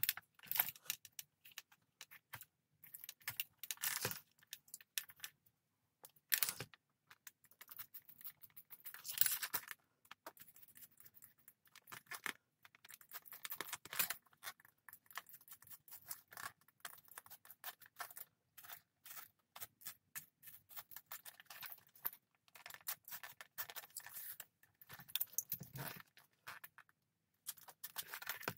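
Metal buckles and D-rings on leather bracers clinking, with leather and fur rustling and scraping as they are handled: irregular small clicks and rustles, a few louder.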